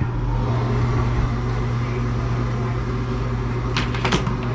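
Rheem gas furnace's draft inducer motor starting up and running with a steady hum, with a couple of short knocks about four seconds in.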